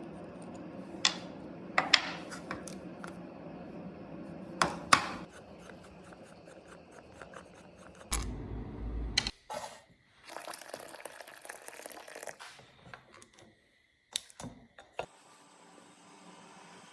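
Handling noises: several sharp clicks and knocks in the first five seconds, a short low rumbling burst about eight seconds in, then a hiss for a couple of seconds.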